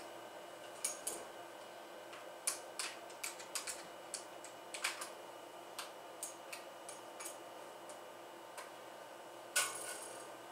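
Electric bass played unamplified, heard only as faint, irregular clicks and taps of the fingers on the strings, over a faint steady electrical whine.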